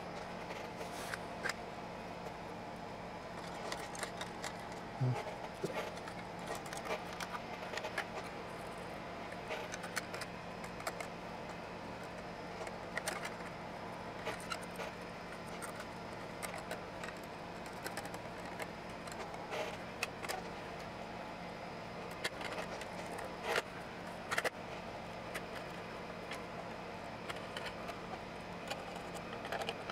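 Metal clinks, taps and light scrapes as the sheet-metal covers of a Hewlett-Packard amplifier cabinet are fitted onto its aluminium frame and screwed down with a screwdriver. The short clicks come irregularly, several every few seconds.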